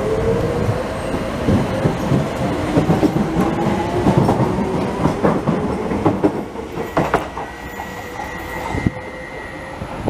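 Docklands Light Railway train pulling out of the station: its traction motors whine, rising in pitch as it picks up speed, while the wheels click over the rail joints as the cars pass. The noise dies down after about seven seconds.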